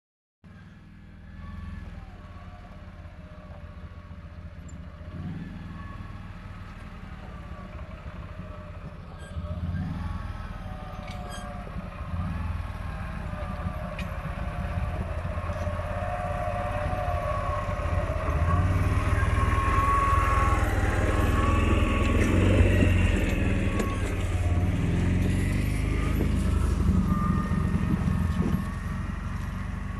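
CFMoto ATV engine running steadily as it tows a loaded log trailer, growing louder as it approaches and easing off slightly near the end.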